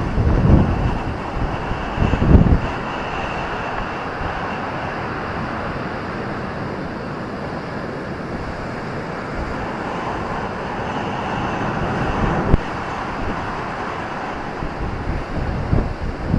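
Ocean surf washing on a beach, a steady rushing noise, with wind buffeting the microphone in low gusts over the first few seconds and a brief knock about twelve seconds in.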